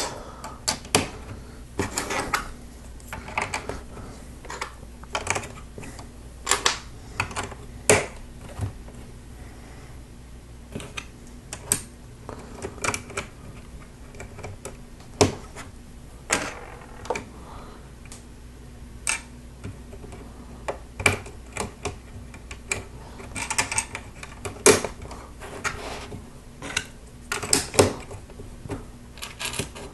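Plastic Lego bricks and plates clicking and rattling as pieces are handled, picked from a pile and pressed together, in a string of irregular sharp clicks.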